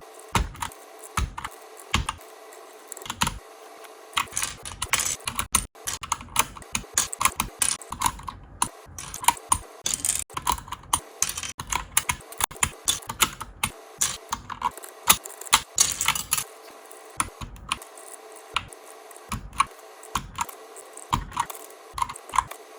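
Typing on a mechanical keyboard fitted with Mario keycaps: a run of quick, irregular key clacks, sparser at first, densest in the middle, then thinning out again near the end.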